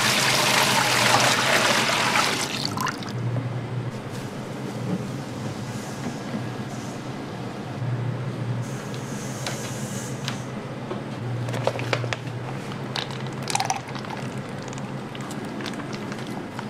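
A thick stream of oil poured from a stainless steel bowl into a steel pan, splashing for about three seconds. Afterwards come quieter kitchen handling sounds with a few scattered clicks.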